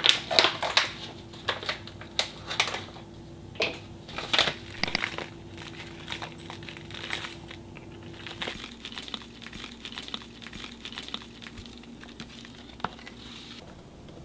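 Hands handling a cocoa powder container and a ceramic mug: a run of sharp clicks, taps and crinkling, busiest in the first few seconds, as cocoa powder is shaken into the mug.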